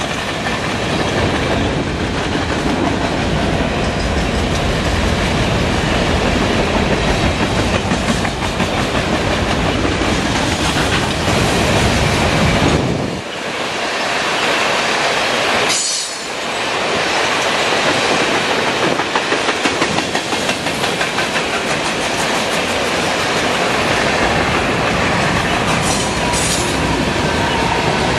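Canadian Pacific grain train of covered hopper cars rolling by, a steady rumble of steel wheels on the rails with clickety-clack over the rail joints. The sound drops out briefly twice about halfway through.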